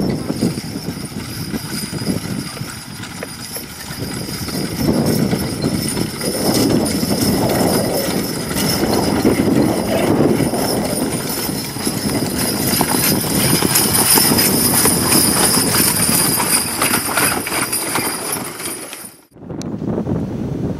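Hooves of a four-horse hitch of Belgian draft horses trotting, pulling a wheeled carriage, a dense run of quick hoofbeats. The sound drops out briefly near the end.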